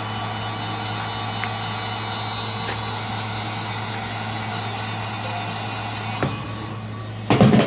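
Heat gun running, a steady blowing hiss over a low hum, as it warms the phone's glued back panel. A faint click about six seconds in and a short loud clatter near the end, after which the blowing stops.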